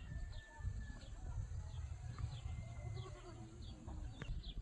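A flock of goats and sheep bleating, many short calls overlapping, over a steady low rumble.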